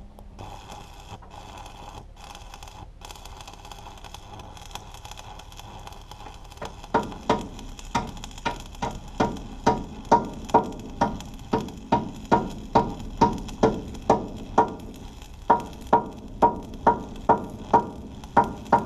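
Electric arc welding on a steel engine stand: a steady crackling hiss, joined about seven seconds in by a run of sharp, evenly spaced metallic ticks, about two or three a second, that stop near the end.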